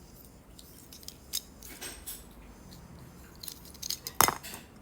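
Several light clicks and clinks of small hard objects being handled, scattered at first and clustering near the end, where the sharpest click comes.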